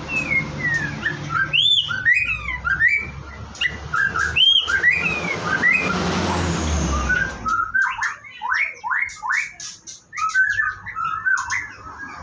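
White-rumped shama singing: a run of varied whistled phrases with notes gliding up and down, then a quick series of sweeping notes in the second half. A rushing noise briefly covers the song about six seconds in.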